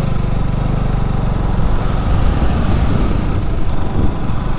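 KTM Duke 200's single-cylinder engine running steadily at cruising speed, with wind rumbling on the microphone from about a second and a half in.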